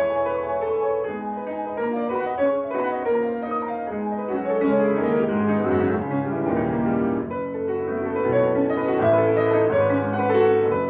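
Solo piano playing classical music: a continuous stream of quick notes over held bass notes.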